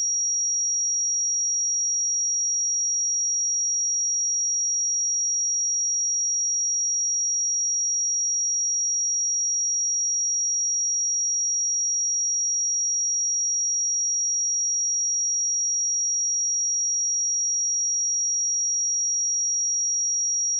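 Pure 5685 Hz sine-wave test tone: a single steady high-pitched tone, unchanging in pitch and loudness, used to check speakers or headphones.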